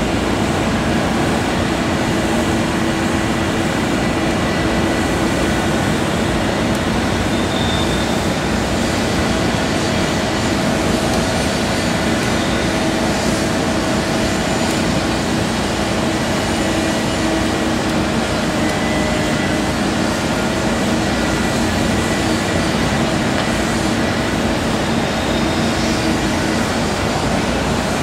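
Caterpillar 320DL excavator's diesel engine running steadily under working load, a constant droning hum with no breaks.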